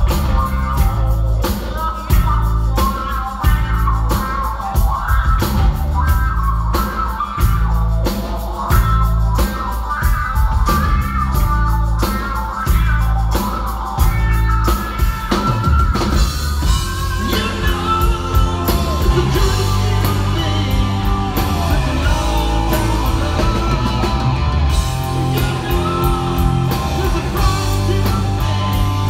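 Live rock band playing loudly, with electric guitar, bass and drum kit and a steady hard-hit beat. About halfway through the drum hits thin out and a bending lead line over held chords comes to the front.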